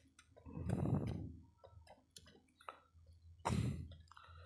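Hand-lever grease pump being worked to force grease through a hose into the grease nipple of a truck's leaf-spring shackle. There are light irregular clicks, with a short noisy rush about a second in and a sharper one near the end.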